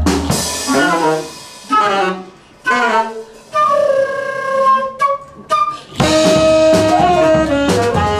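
Live small-group jazz: the bass and drums drop out, leaving an unaccompanied woodwind break of quick runs, sliding phrases and held notes. The full band with bass and drums comes back in about six seconds in.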